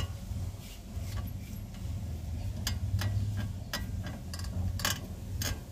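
Steering linkage of a VW Fox, wheel removed, creaking and clicking in irregular sharp ticks, about one every half second to a second, as the steering is turned, over a steady low hum. The mechanic later puts the creak down to a worn tie rod end.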